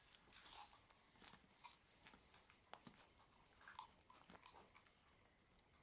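Puppy chewing a raw chicken piece with bone and cartilage: faint, irregular crunches and clicks of teeth on bone.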